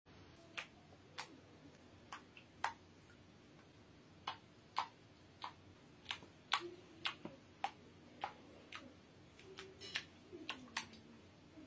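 Faint, irregular small splashes from a wet kitten's front paw paddling in shallow bathwater: sharp little ticks, about two a second.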